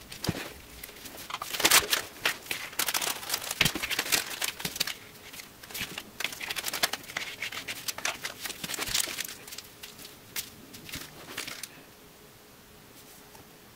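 Plastic Ziploc bag crinkling as it is handled, in irregular bursts that stop about twelve seconds in. The bag is being used as a piping bag for JB Weld epoxy.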